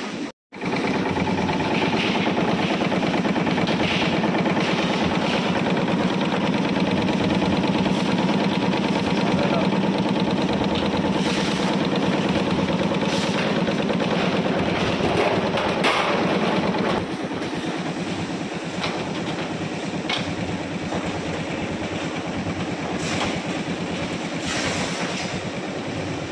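Bakery machinery running with a steady drone, a little quieter in the last third, with occasional clanks of metal baking trays being handled.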